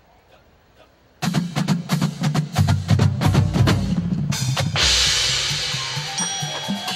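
Marching drumline of snare drums, tenor drums and bass drums starting abruptly about a second in with a fast run of stick strokes. A loud crash with a long, slowly fading ring comes about halfway through, and ringing pitched notes join near the end.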